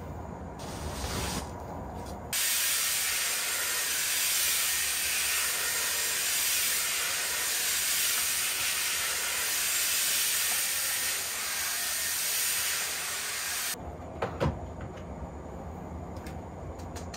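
Handheld hair dryer blowing: a loud, even rushing hiss that switches on about two seconds in and cuts off suddenly after roughly eleven seconds, followed shortly by a sharp knock.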